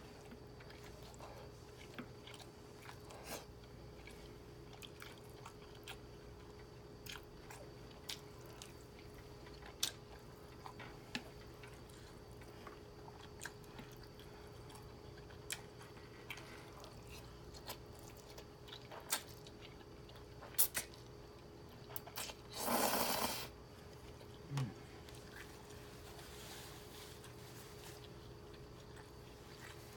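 Close-up chewing of beef, broccoli and garlic butter noodles: a steady run of small wet mouth clicks and smacks. About 23 s in there is one louder rush of noise lasting about a second, followed by a brief low sound.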